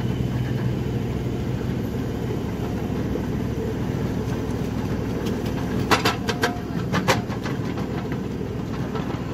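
Miniature ride-on train running along its narrow-gauge track, a steady low rumble with a few sharp clacks of the wheels about six to seven seconds in.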